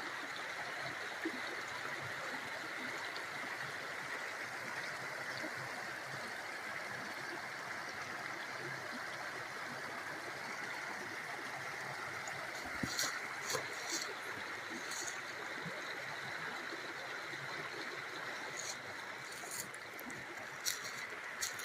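Trout stream water running steadily. In the second half, a scatter of short, sharp clicks sounds over it.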